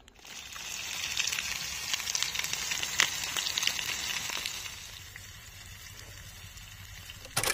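Food frying in hot oil, sizzling and crackling, loudest for the first few seconds and then settling to a fainter hiss.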